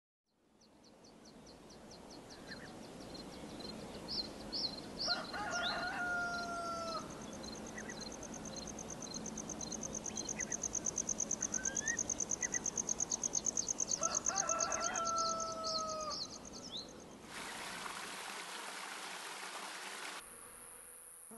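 Rural ambience fading in, with a rooster crowing twice, about ten seconds apart, each crow ending in a long held note that falls away. Scattered small-bird chirps and a fast pulsing high trill run underneath; near the end a hiss comes in and the sound cuts to a high steady buzz.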